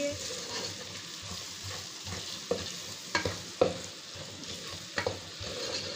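Spatula stirring and scraping a spiced onion-tomato masala as it sizzles in a metal pot, with a few sharper scrapes and knocks against the pot.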